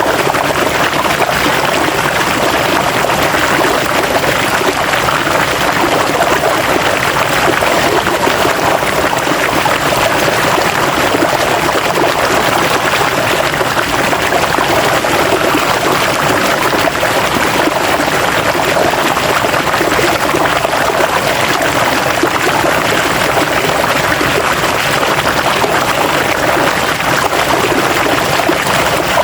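River water flowing steadily over rocks, a continuous rushing with no breaks.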